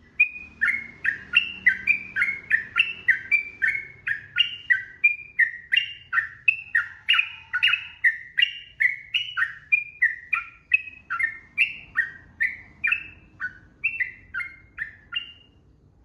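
Sooty-headed bulbul (trucukan) singing a long unbroken run of loud whistled notes, about two a second, many falling in pitch, that stops shortly before the end.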